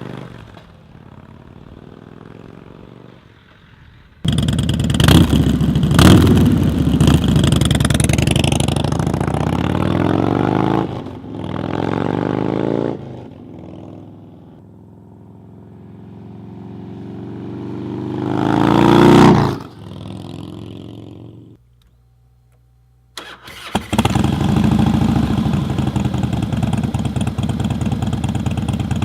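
Harley-Davidson Softail Night Train's V-twin engine heard through its exhaust in a run of short clips: a quiet idle, then a louder stretch of blips where the revs climb and fall, a long rev that rises and drops about 19 seconds in, a brief gap, then a steady loud idle near the end.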